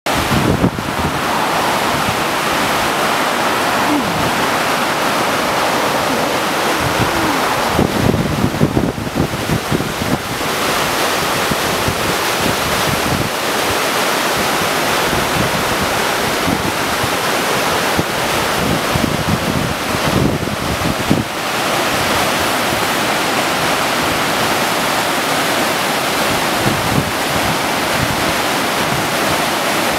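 Water pouring over the Saville Dam spillway weir in a steady, loud rush: the reservoir is full and overflowing with spring snowmelt and heavy rain. Wind buffets the microphone with low rumbles about eight seconds in and again about twenty seconds in.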